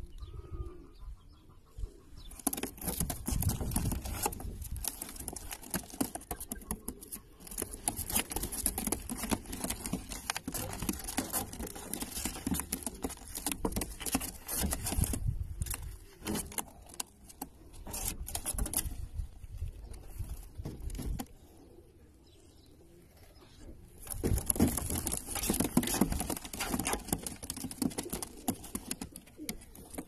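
Domestic pigeons cooing, with a crackly hiss over much of it that eases for a few seconds past the middle.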